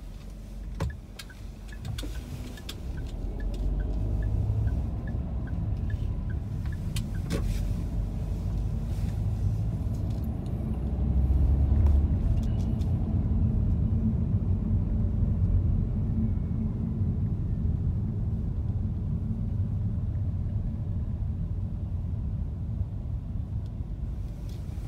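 A car's engine and road noise heard from inside the cabin: a low rumble that swells over the first few seconds as the car picks up speed, then holds steady. A quick, even run of light ticks sounds over the first seven seconds, and there is a single knock about a second in.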